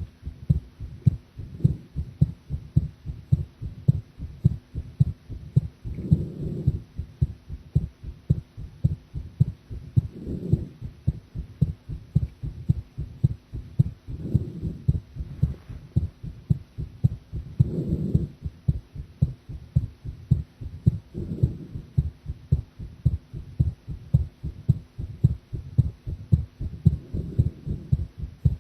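A woman's heartbeat heard close up at the chest: a steady run of low thumps, beat after beat, with a broader, softer swell recurring about every four seconds.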